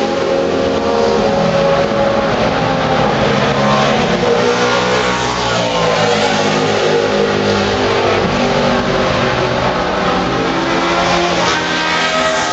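Race car engines at speed, more than one heard at once, their pitch rising and falling as they accelerate and shift gears, loud and continuous, with a fresh climb in pitch near the end.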